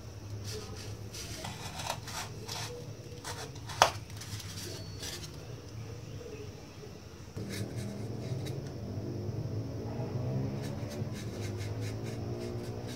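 Small handling sounds of craft work: scattered clicks and taps of tools and materials on a work surface, with one sharp click a little under four seconds in. About seven seconds in, a louder, steadier wavering hum joins.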